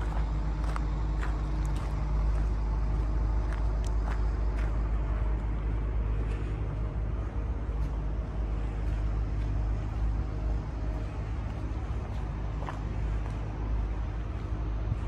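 Komatsu PC490LC-11 crawler excavator's diesel engine idling with a steady low rumble. A few light ticks are heard in the first five seconds.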